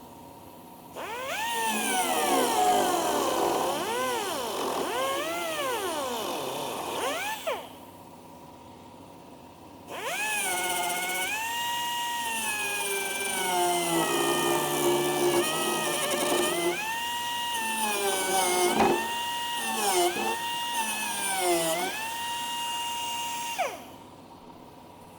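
Die grinder with a cut-off wheel whining in two long runs, cutting fibreglass: it spins up, then its pitch sags and recovers again and again as the wheel bites into the cowl and eases off. It winds down about seven seconds in, starts again a couple of seconds later, and winds down near the end.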